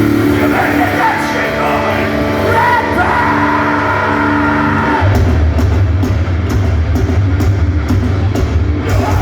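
Hardcore punk band playing live and loud: sustained electric guitar chords with vocals, then about five seconds in the full band comes in with heavy bass and a steady drum beat.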